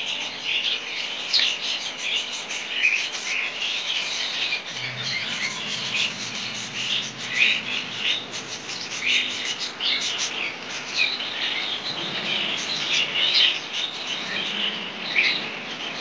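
Parrot nestlings chirping in a dense, unbroken stream of short, high calls.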